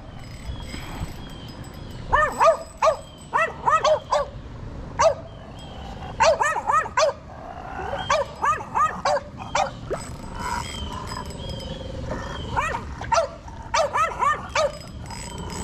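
A dog yapping in quick runs of short, high barks, several to a run, repeated throughout.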